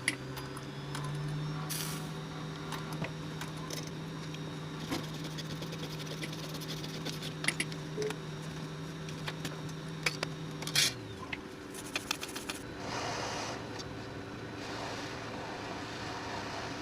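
A small electric fan motor hums steadily, then winds down and stops about eleven seconds in. Light clicks of small tools are heard throughout, and a soft rushing noise follows near the end.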